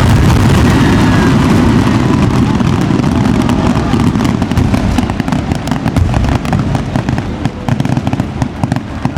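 Aerial fireworks display: a dense, continuous barrage of booming shell bursts, giving way from about four seconds in to rapid crackling.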